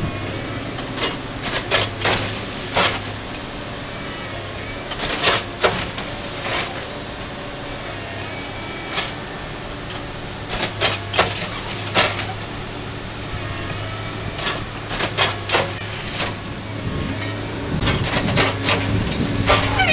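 Track maintenance machines on a tie replacement gang running with a steady low diesel hum. Sharp knocks and clanks come at irregular intervals every second or two from the machines' workheads, and they are thickest near the end.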